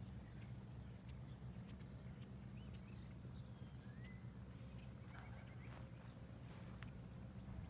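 Faint lakeside morning ambience: a low steady rumble under a few faint bird chirps and small clicks, the chirps mostly around the middle.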